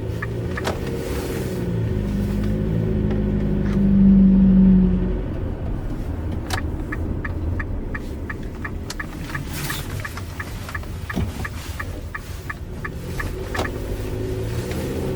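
High-mileage Nissan Serena C26 under way, with a steady low droning hum (a 'boon') that swells to its loudest for a few seconds near the start as the accelerator is pressed. The owner calls it an abnormal noise of unknown cause that comes on with throttle. Light regular ticking, about two a second, runs through the latter part.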